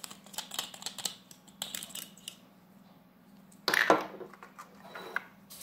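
Small plastic clicks and knocks of a spray bottle's black pump head being handled and unscrewed from its clear acrylic bottle, with one louder short rush of noise just before four seconds in, over a faint steady hum.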